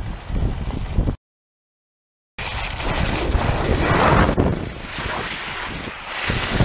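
Wind buffeting the microphone of a camera on a skier going downhill, with the skis hissing and scraping over spring snow. About a second in, the sound cuts out completely, coming back just over a second later.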